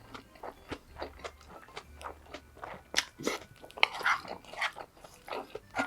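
Close-miked chewing and biting by a person eating, a run of short, irregular wet clicks and crunches, louder and denser in the second half.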